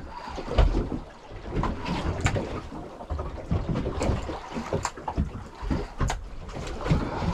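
Wind buffeting the microphone and water moving against the hull of a small fishing boat at sea, with a few sharp knocks.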